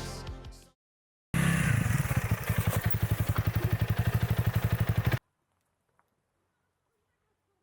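Motorcycle engine running steadily with a rapid, even pulse. It starts after a moment of silence and cuts off abruptly about four seconds later.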